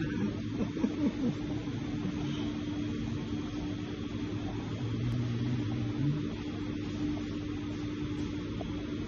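Steady low electrical hum, one even tone with its overtones, over a faint background hiss.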